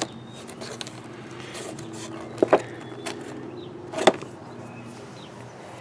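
Stiff, weathered canvas and vinyl being handled by hand: faint rustling, with a pair of sharp clicks about two and a half seconds in and another near four seconds in.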